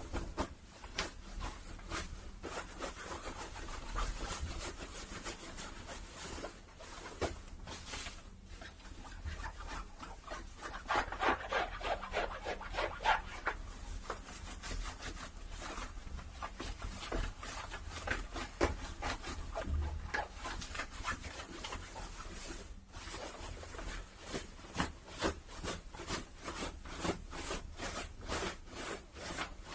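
Cloth rubbed and scratched close to the microphone in quick, repeated strokes, with a denser, louder stretch of rubbing about eleven to thirteen seconds in.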